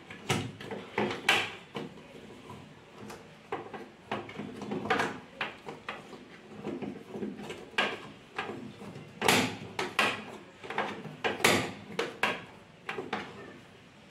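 Irregular plastic clicks and knocks as a plastic dispensing tap is pushed and twisted into its mount in a Whirlpool water purifier's plastic front cover.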